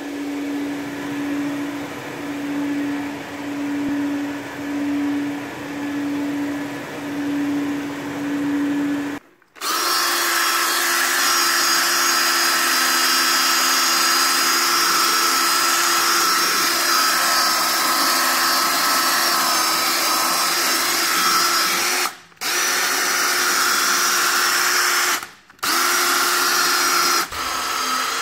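For the first nine seconds, a machine hum that swells and fades about once a second. Then a DeWalt cordless rotary tool with a round brush head runs steadily at speed, scrubbing a carpeted stair tread, its whine broken off by short gaps three times near the end.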